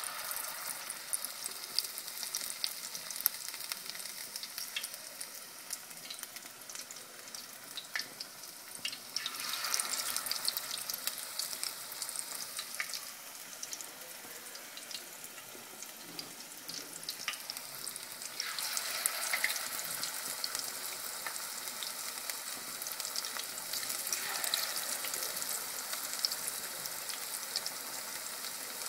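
Potato and spinach pakora batter sizzling and crackling as it deep-fries in hot oil. The sizzle swells louder a few times, about ten, eighteen and twenty-four seconds in.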